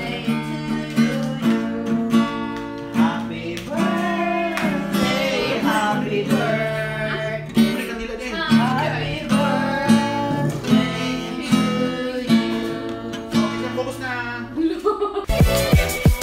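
An acoustic guitar strummed with a voice singing along. About a second before the end it cuts abruptly to different recorded music with a strong beat.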